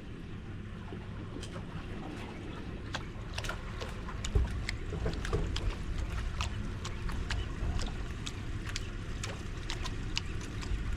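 Wind and water against a drifting boat's hull make a steady low rumble, with irregular light clicks and ticks scattered through from about two seconds in.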